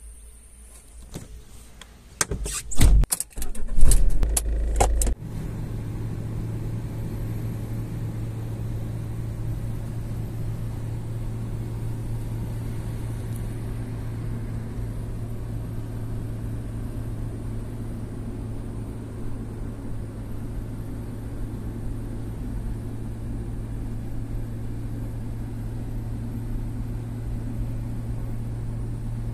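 A car is started: a few loud clicks and knocks, then the engine catches about five seconds in and runs with a steady low hum.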